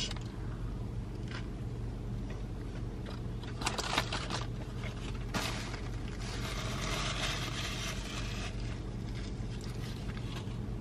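A person chewing a mouthful of burger, with faint mouth clicks, then a paper napkin rustling as it wipes the mouth about six seconds in, over a steady low hum inside a car.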